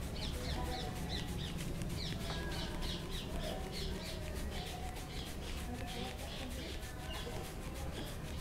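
Brisk, rhythmic rubbing of a palm over a man's hair and scalp in a head massage, with repeated high bird chirps and a low steady hum behind it.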